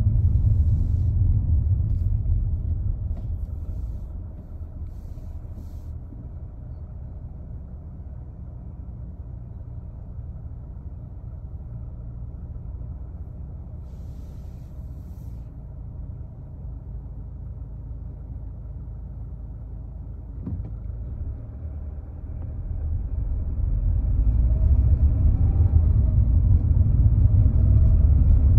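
Low road rumble heard inside a car's cabin. It fades as the car slows to a stop about four seconds in and stays low and steady while the car waits. It swells again from about 22 seconds as the car pulls away.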